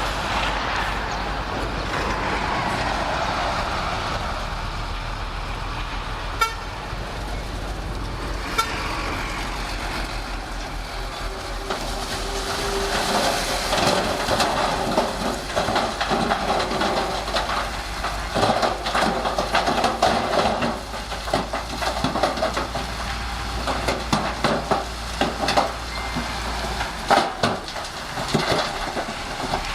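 Shantui SD16 bulldozer's diesel engine running steadily under work, with a couple of sharp clicks and then busy clanking and rattling from about twelve seconds in.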